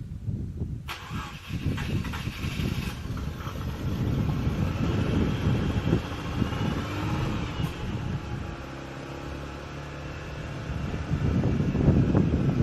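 Mazda RX-8's two-rotor rotary engine running and being revved, the pitch rising and falling. It drops to a steady idle for a couple of seconds, then the revs climb again near the end.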